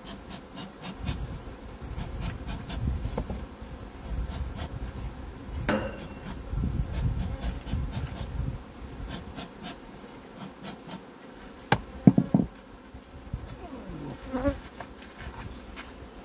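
Honeybees buzzing around an open hive, with scattered light clicks and a few sharp knocks, the loudest of them about twelve seconds in.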